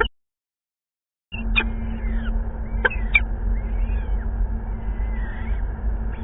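Peregrine falcon chicks calling, as young falcons do when begging at a feeding: high, thin, sharp calls and short pitch-gliding calls, some overlapping. Underneath is a steady low hum and hiss. The sound cuts out completely for about a second at the start, then comes back.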